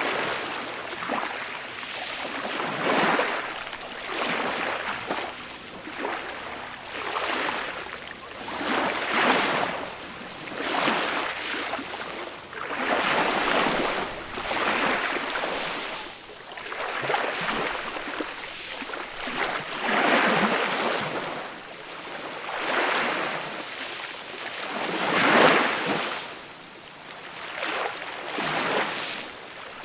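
Small, gentle waves breaking and washing up the shore, one swell of hiss after another every two seconds or so, with a louder wave about 25 seconds in.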